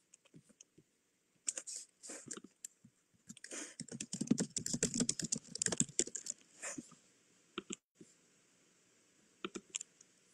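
Typing and clicking on a computer keyboard in short bursts, densest in the middle, with a few single clicks near the end.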